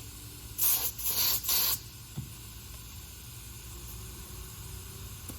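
Air hissing at the valve stem of a 10-inch dirt bike tire's inner tube in three short bursts, between about half a second and two seconds in.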